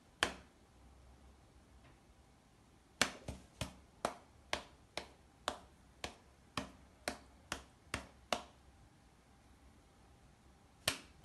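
A series of sharp, snapping clicks: one right at the start, then a run of about a dozen at roughly two a second from about 3 s to 8 s, and another near the end.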